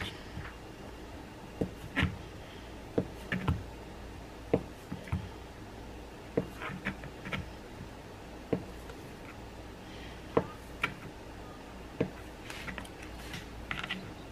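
Chef's knife slicing through a block of cheddar cheese and knocking on a plastic cutting board. The sharp knocks come about one every second or two at an uneven pace.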